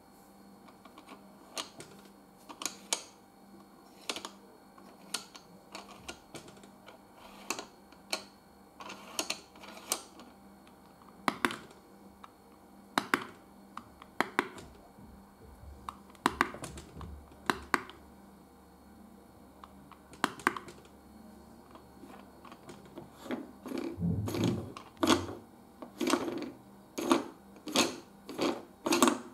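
Repeated sharp clicks of a round push-button tap light on a children's busy board being pressed over and over, coming faster near the end with some duller knocks of hand on board.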